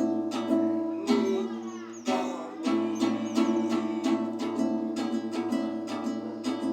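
Music: a plucked string instrument like a guitar strummed in a steady rhythm over a sustained low note, with a short gliding melodic passage about a second in.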